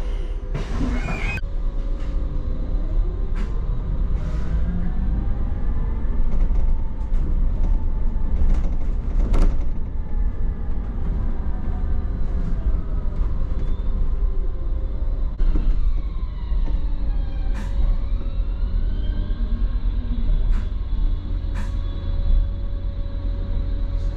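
Electric double-decker bus (Optare MetroDecker EV) driving, heard from inside: a heavy low road rumble under the traction motor's whine, which rises in pitch as the bus pulls away and sinks again as it slows, with several falling whines about two-thirds of the way in as it brakes. Scattered sharp knocks and rattles.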